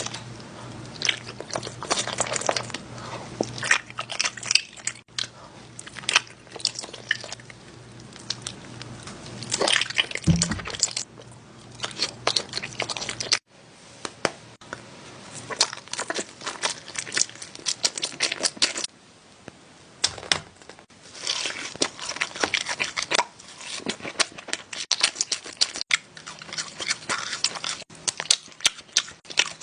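A person biting and chewing crunchy food, a close run of quick crunches and crackles, with a short break about 13 seconds in and a quieter stretch a little later.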